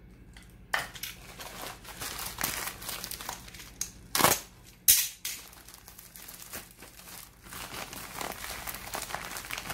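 A white plastic courier mailer crinkling as it is handled and cut open, with two sharp, loud noises about half a second apart a little over four seconds in.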